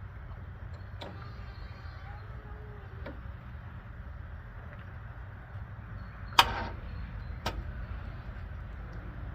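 Electric fuel pump running with a steady low hum while the new fuel line is pressurised and checked for leaks. A few light clicks, and one sharp loud knock about six and a half seconds in, followed by another click a second later.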